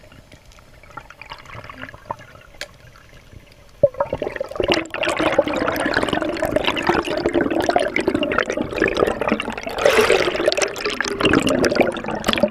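Heard underwater: faint water ambience with scattered clicks, then a sharp click about four seconds in, followed by loud, churning, bubbling water as a speared Indian pompano thrashes on the spear shaft.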